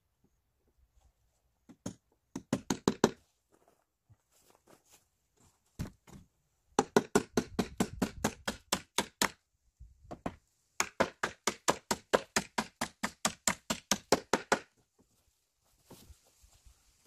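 Hammer driving large nails into a wooden stair, in quick rapid strikes of about five a second. It comes in three bursts: a short one about two seconds in, then two longer runs of a dozen or more blows each.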